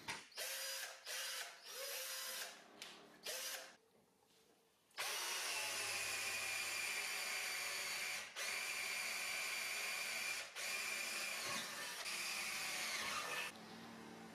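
A handheld power tool's motor: several short bursts in the first few seconds, then, after a pause of about a second, a steady run with a constant whine for about eight seconds that dips briefly twice before it stops near the end.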